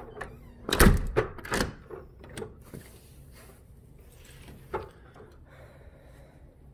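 A door with blinds over its glass being shut: a cluster of loud knocks and rattling about a second in, then a few lighter clicks of the latch and hardware.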